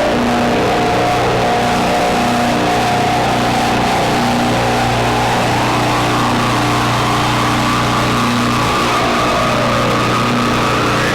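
Electronic noise-drone jam on small synthesizers (Bastl Kastle 1.5 and Krackatone through a Pocket Master pedal): a dense, gritty drone over a steady low hum, with a low note pulsing about once a second. Pitched tones slide through it, one rising about halfway and another falling near the end.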